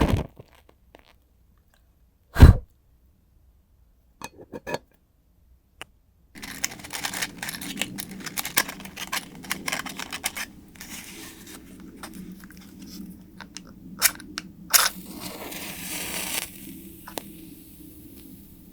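Homemade wooden-wick candle crackling and popping. A few sharp knocks come first, the loudest about two and a half seconds in, and the irregular crackling starts about six seconds in and keeps going.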